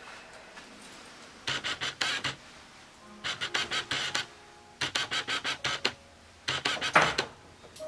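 Grooming scissors snipping through a dog's coat in four quick runs of several rapid cuts each, the last run the loudest.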